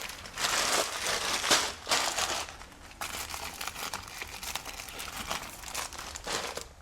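Plastic food packaging being handled, rustling and crinkling irregularly as bags of dry goods are pulled from a pantry shelf.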